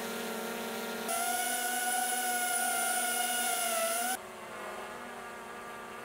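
Drone propellers hovering, cut between three takes. First a DJI Mini 4 Pro about 1.2 m away. From about a second in, a louder DJI Avata 2 at the same distance, its fast-spinning props giving a high whine and hiss. From about four seconds in, the Mini 4 Pro at 10 m, quieter.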